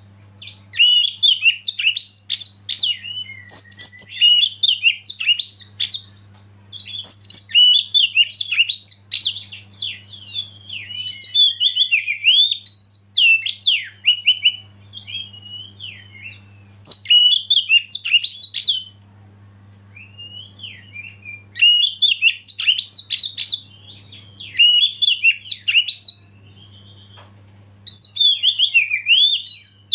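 Oriental magpie-robin singing: loud bursts of varied whistles, chirps and trills a few seconds long, separated by short pauses, over a faint steady low hum.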